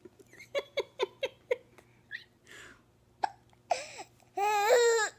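A person with the hiccups, hiccuping and laughing: a quick run of short giggles about a second in, single hiccups a little later, and a long, high-pitched, wavering laugh near the end.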